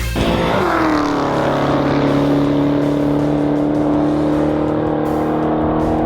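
Car engine under way: its pitch drops sharply in the first second as the revs fall, then it holds a steady drone at constant revs.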